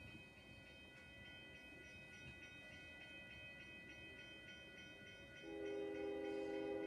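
Railroad crossing bell ringing steadily, played back through a TV's speakers. About five and a half seconds in, a train horn sounds a loud chord and holds it.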